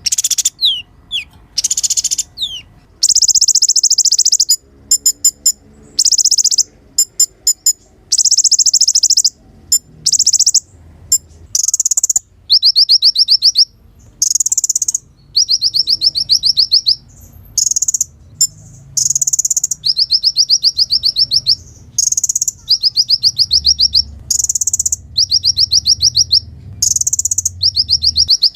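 Van Hasselt's sunbird (kolibri ninja) singing: high, thin, rapid trills and rattles in short bursts, one after another with brief gaps.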